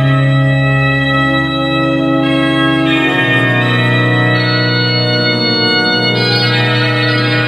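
Organ playing held chords that shift slowly, a new chord every second or two over a sustained low bass note that steps down about three seconds in.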